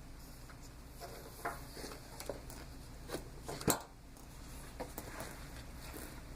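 ResMed AirMini travel CPAP blower running at 10 cmH2O as a faint, steady low hum. Scattered small clicks and knocks sound over it, the loudest a sharp knock about three and a half seconds in.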